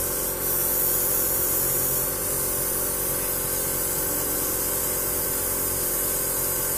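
Airbrush spraying in one continuous burst, a loud steady hiss of air, with a steady hum beneath it. It is being flushed through while the airbrush is cleaned between colours.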